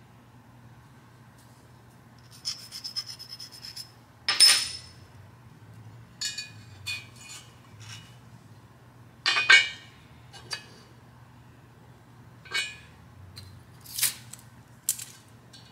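Metal clinks and rattles of a steel piston ring and feeler gauge being handled against the aluminium cylinder block while the ring gap is checked. A short run of rapid scraping strokes with a bright ringing comes about two and a half seconds in, followed by a string of sharp clinks, the loudest about four and a half and nine and a half seconds in.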